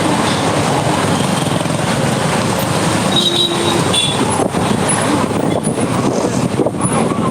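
Heavy wind blowing, a loud steady rushing noise, with a few brief high squeaks.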